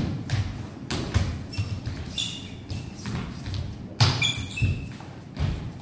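Footsteps and shuffling of two people moving on a hard hall floor, thudding several times a second, with shoe soles squeaking briefly about two seconds in and again around four seconds in.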